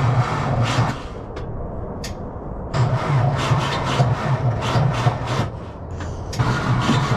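Skid steer engine cranking on its starter without catching, a rhythmic rasping of about four to five strokes a second, in three goes with short breaks between. It is a cold, hard start.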